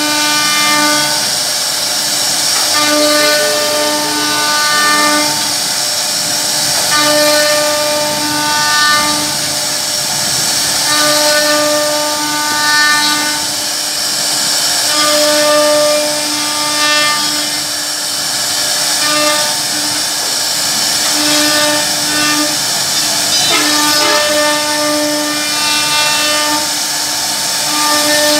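CNC router spindle carving a relief into a wooden plank: a steady high cutting hiss with a fixed-pitch whine that swells and fades every couple of seconds as the bit works through the wood.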